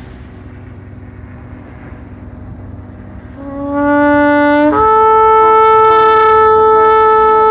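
Long spiral shofars being blown: after a few seconds of surf and wind, a low horn note begins about three seconds in, jumps to a higher note a second and a half later, and is then held steady and loud.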